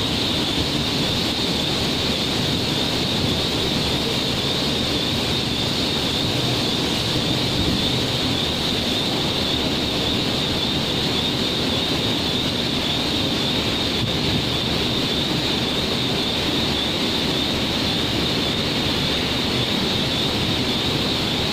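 Steady, loud factory machinery noise with a constant high hiss over it.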